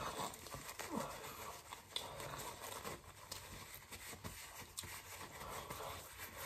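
Faint rustling and crinkling of a paper tissue as fingers are wiped clean, with small scattered crackles.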